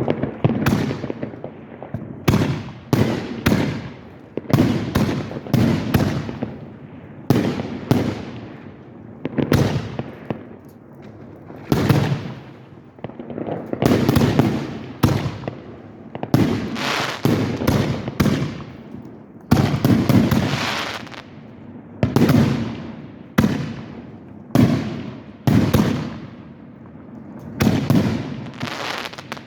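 Aerial fireworks shells bursting in a steady barrage: sharp bangs roughly once a second, sometimes two or three close together, each dying away in a long echo.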